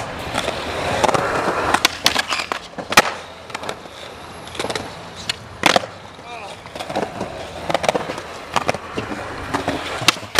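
Skateboard wheels rolling on a concrete sidewalk, broken by a string of sharp clacks as the board is popped and lands, with two especially loud cracks about 3 and 6 seconds in.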